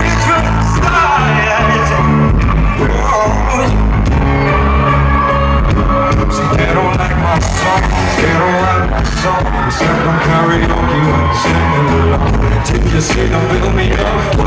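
Live pop-rock band playing loud with drums, bass guitar and keyboards under a male lead vocal, heard from within the audience in a large hall. A regular heavy drum beat runs through it.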